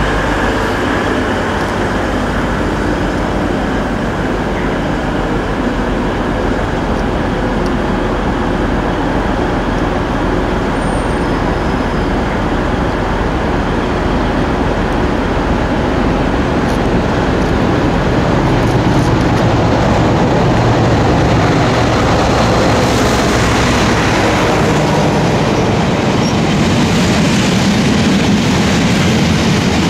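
A Class 185 diesel multiple unit running and moving along the platform, then a Class 60 diesel locomotive passing with an iron ore train. The sound grows louder a little past halfway, and the long string of heavy ore wagons rumbles by near the end.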